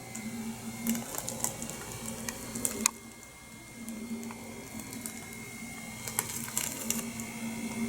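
Clicks of the push buttons on a Dover elevator fixture panel being pressed, in several short clusters, with a low electrical hum that comes and goes.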